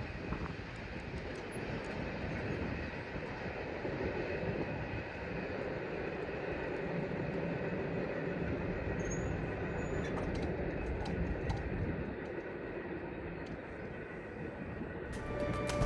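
CSX autorack and intermodal freight train cars rolling past a grade crossing, a steady noise of wheels on rail with a few faint clicks. Outro music comes in near the end.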